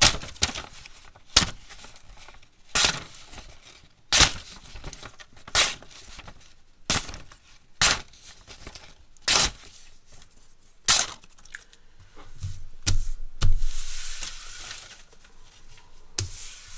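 A small stainless steel folding knife slicing through paper: a string of short, crisp cuts about every second and a half, then a longer stretch of paper noise near the end.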